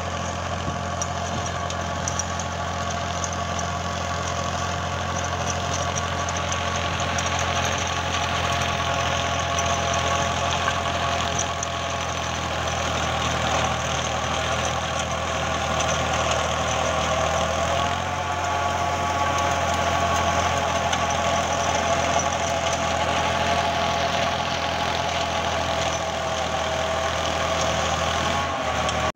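Tractor diesel engine running steadily under load while driving a rotavator that churns through field soil, with a steady whine over the engine's low hum. The pitch dips slightly about two-thirds of the way through.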